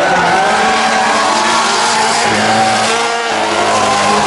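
Two drift cars' engines held at high revs, their pitch rising and falling with the throttle, over the hiss and squeal of tyres spinning sideways through a corner in a tandem drift.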